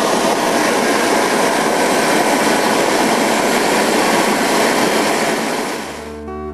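Homebuilt turbocharger jet engine, run on compressed air and gas, making a loud steady roar as it blows a long flame from its exhaust. The flame shows its fuel burning behind the exhaust turbine, a sign of an inefficient combustion chamber. The roar fades near the end as acoustic guitar music comes in.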